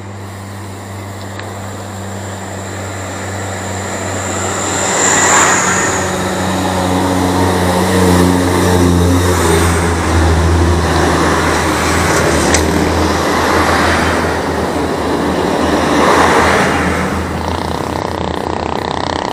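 Wind rushing over the bicycle-mounted action camera's microphone, growing louder as the bike picks up speed downhill. An oncoming truck's engine passes about halfway through.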